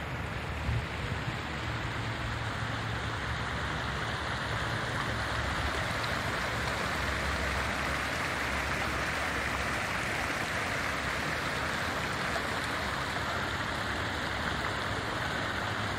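Many small fountain jets splashing into a shallow pool, a steady rain-like hiss of falling water.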